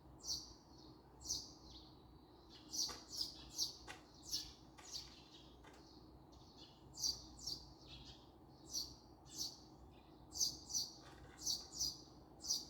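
Small songbirds chirping: many short, sharp, high chirps, some in quick runs, coming irregularly over a faint steady background hum.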